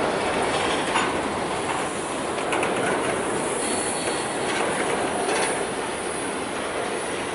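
Freight train of grain hopper cars rolling past close by: a steady rumble of steel wheels on rail with a few sharp clicks. Brief high-pitched wheel squeal comes in around the middle.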